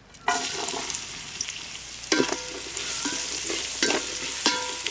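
Chopped onion dropped into hot oil in a large steel pan, sizzling suddenly from about a third of a second in and then steadily. From about two seconds in, a steel spatula stirring the onion knocks against the pan several times with a ringing clank.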